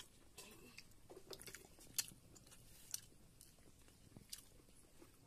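Faint chewing of a mouthful of rice eaten by hand, with scattered short sharp clicks, the loudest about two and three seconds in.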